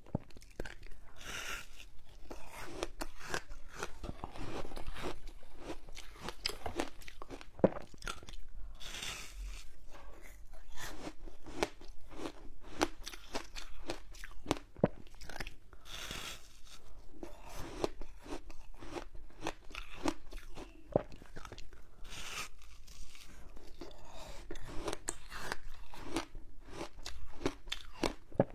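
Close-up biting and chewing of a slab of frozen passion fruit ice: crisp crackling crunches as the ice breaks between the teeth, coming in clusters every few seconds with continuous smaller crackles of chewing in between.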